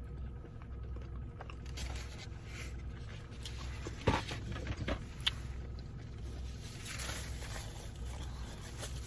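Steady low hum of a car running, heard from inside the cabin, with a few short clicks and scrapes of a fork on the food and container around the middle.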